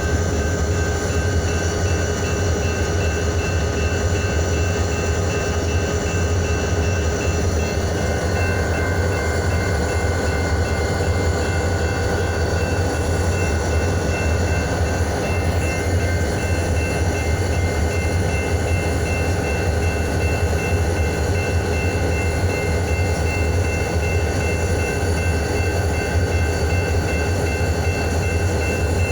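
Diesel freight locomotive running steadily: a deep, constant rumble with a few steady high-pitched tones over it, unchanging throughout.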